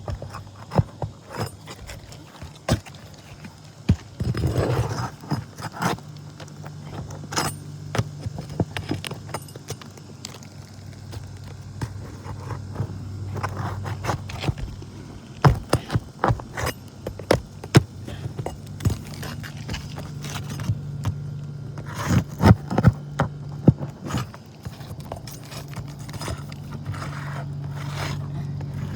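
Scraping, clicking and knocking of a hand tool working under asphalt roof shingles to pry out the nails and staples holding them, in irregular bursts, over a steady low hum.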